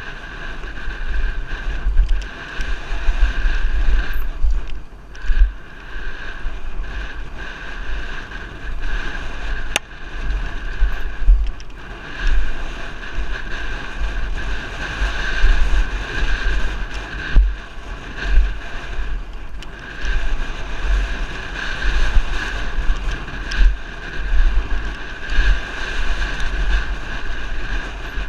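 Wind buffeting the microphone of a helmet-mounted camera during a fast downhill mountain-bike descent, mixed with the rattle of the bike and its tyres running over a dry dirt trail, and a steady high buzz. The noise surges and dips every second or so with the bumps of the trail.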